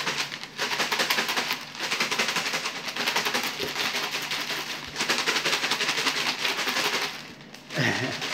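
Paper slips rattling fast inside a clear plastic container shaken hard by hand, in runs of a second or two with short breaks, stopping shortly before the end.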